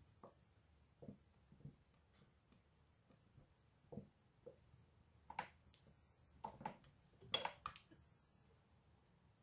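Silicone spatula scraping and tapping against the inside of a stainless-steel mixer bowl: scattered soft scrapes and knocks, a few louder ones around five and seven seconds in, with near silence between.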